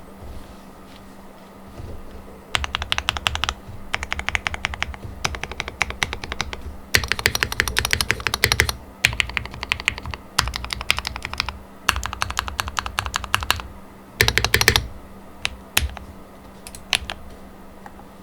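Typing on a custom Mode 80 tenkeyless mechanical keyboard with Gateron Black Ink V2 linear switches and GMK Botanical keycaps: runs of rapid keystrokes in bursts of a second or two with short pauses between them, a loudest, densest flurry near the end, then a few single key presses.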